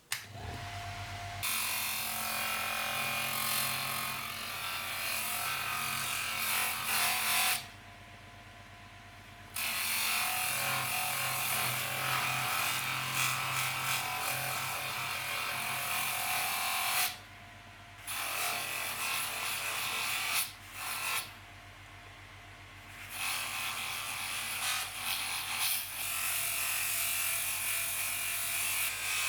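A small handheld electric power tool's motor running steadily in several stretches with a high, hissing buzz. It stops for about two seconds roughly a quarter of the way in, again briefly past the middle, and for another two seconds a little later.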